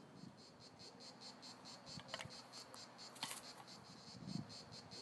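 Faint cricket chirping in a steady, even rhythm of several short chirps a second, with a few soft clicks and a low thump.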